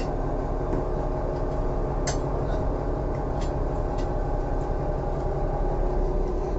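Fishing trawler's engine running steadily, with a few sharp knocks from the deck gear, the clearest about two seconds in.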